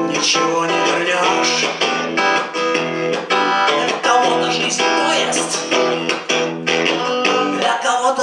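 Guitar strummed in a steady rhythm with no singing: an instrumental passage of a song.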